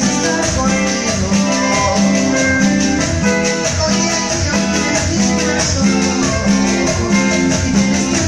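Live band playing Latin dance music: electric guitar and keytar over a steady beat.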